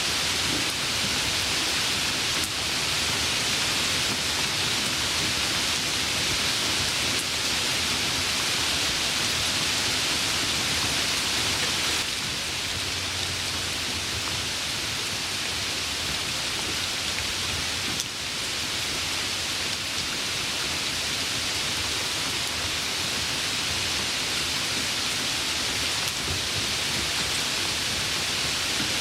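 Steady rain falling, an even dense hiss of drops, a little softer from about twelve seconds in.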